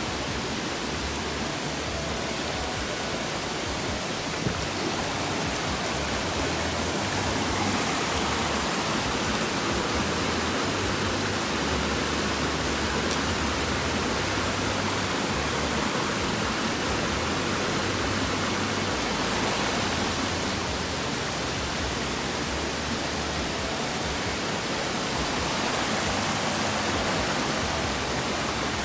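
Steady rush of flowing water from a mountain stream or cascade, an even hiss-and-roar that swells slightly about a third of the way in.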